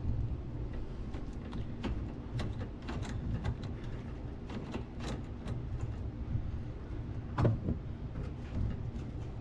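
Wrench working a 7mm bumper bolt loose from underneath: scattered light clicks and metal-on-plastic knocks, with one louder knock about seven and a half seconds in.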